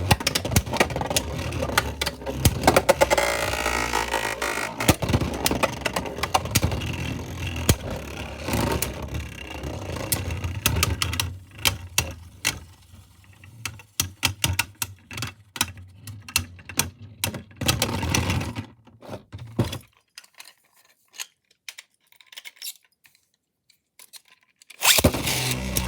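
Spinning Beyblade tops in a stadium, clashing and scraping with a dense run of sharp clicks and knocks. The hits thin out as the tops slow and stop about 20 seconds in, then near silence, then loud sound again near the end.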